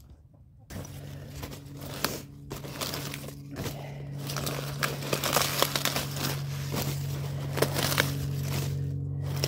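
Leaves crackling and snapping as large brassica leaves are torn off the plants and handled, with many short crisp crackles. A steady low hum starts a little under a second in and continues beneath them.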